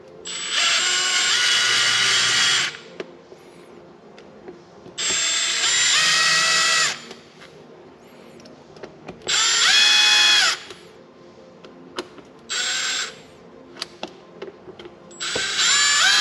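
Small cordless electric screwdriver driving the display housing's screws home in five short runs, each about one to two and a half seconds long. The motor's whine drops in pitch near the end of a run as the screw seats and stops. Faint clicks come between the runs.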